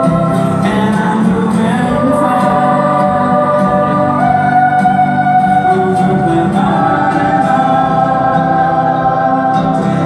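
A large choir of children and teenagers singing long, held notes that move from one pitch to the next every second or two.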